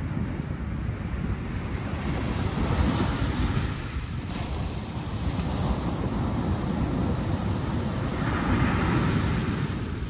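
Sea waves breaking and washing up a pebble beach, the surf swelling louder about three seconds in and again near the end.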